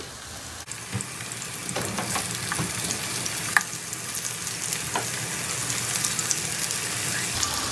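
Zucchini rounds sizzling and crackling in a shallow layer of hot vegetable oil in a frying pan, with a few sharp clicks as more slices are laid in. The sizzle grows slowly louder as the pan fills.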